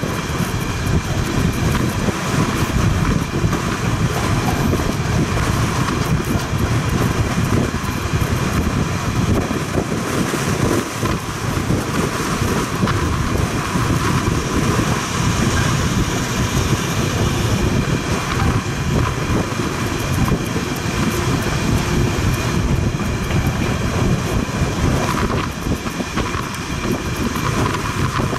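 Freight train of flat wagons rolling past: a steady, loud rumble of steel wheels on the rails, with faint irregular knocks.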